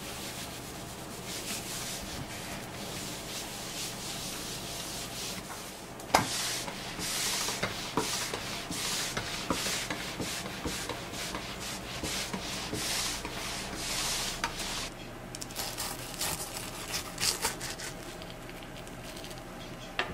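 Mop rubbing on a wooden kitchen floor. It starts as a steady scrubbing, then turns to back-and-forth wiping strokes about one a second, with a sharp knock about six seconds in and a few clicks near the end.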